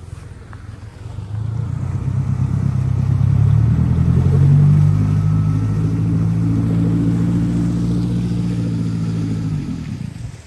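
Boat motor running under power: it speeds up about a second in, holds a steady drone, then drops away shortly before the end as it is throttled back.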